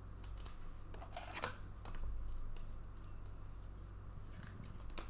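Trading cards and their plastic pack being handled: soft rustling and sliding of card stock, with a few sharp clicks, the sharpest about one and a half seconds in.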